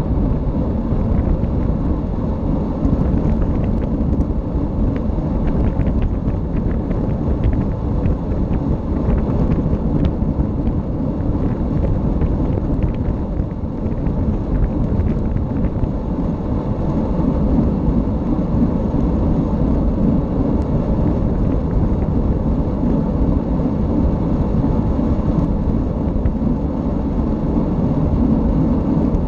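Steady, loud rumble of wind buffeting the camera's microphone at speed on a fast downhill run.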